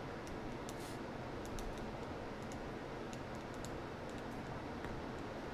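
Computer keyboard being typed on: scattered light key clicks at irregular intervals over a steady background hiss.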